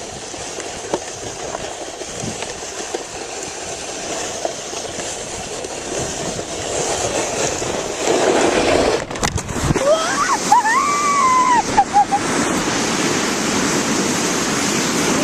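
A sled sliding down a snowy hill with a steady scraping hiss of the runners on snow, mixed with wind on the microphone, growing louder as it picks up speed. A few knocks from bumps come about nine seconds in, followed by a brief high whoop from the rider.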